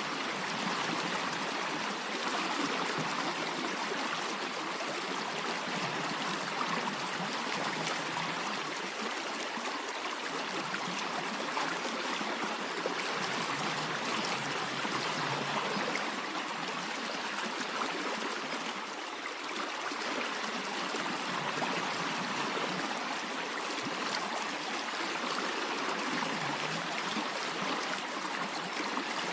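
A stream flowing steadily with a continuous rushing and trickling of water.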